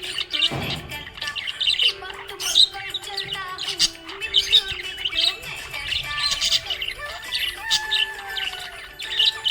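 Budgies chirping and chattering in quick, busy calls, over background music with long held notes.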